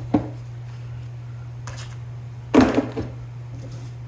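Small objects being handled and set down on a workbench: a few sharp knocks and clatters, the loudest about two and a half seconds in, over a steady low hum.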